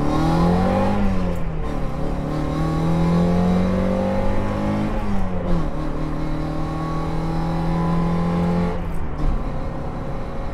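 Mazda MX5 Mk1 1.6-litre four-cylinder engine heard from inside the cabin, accelerating through the gears. The note climbs, drops at upshifts about a second and about five seconds in, climbs again, then falls away near the end as the throttle is lifted.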